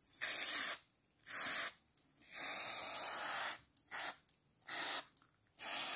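Aerosol lubricant spray hissing out of a can's straw nozzle in six bursts of differing length, the longest about a second and a half near the middle and the last three short puffs, onto the exposed parts of a disassembled spinning reel.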